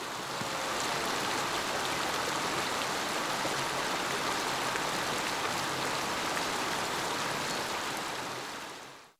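Shallow mountain stream running over rocks: a steady rush of water that fades out near the end.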